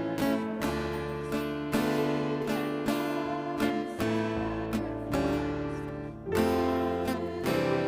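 Acoustic guitar strummed, playing chords in a steady rhythm.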